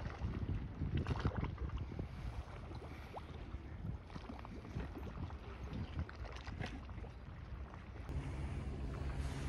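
Wind buffeting the microphone by the sea, with small waves lapping against a concrete seawall. A steady low hum sets in near the end.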